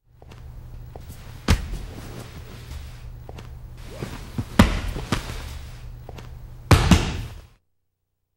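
A series of sharp thuds and slaps over a steady low hum: a hard one about a second and a half in, two more near the middle, and a doubled one near the end. Then the sound cuts off abruptly to silence.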